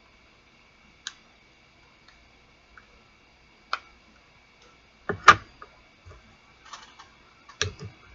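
Scattered clicks and knocks of a small model spaceship and its display stand being handled and fitted together, with the loudest knock about five seconds in.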